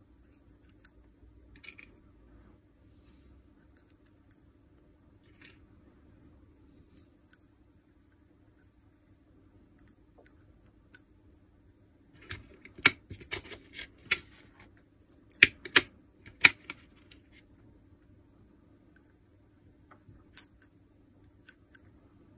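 Small metal parts clicking and clinking as barrel rollers are fitted into the safety clutch of a Makita DHR242 rotary hammer. Scattered single clicks, with a quick run of sharper clinks in the middle.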